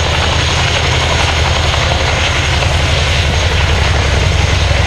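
Boeing Chinook tandem-rotor helicopter flying. Its twin rotors make a loud, steady, rapid blade thump, with a thin high whine over it.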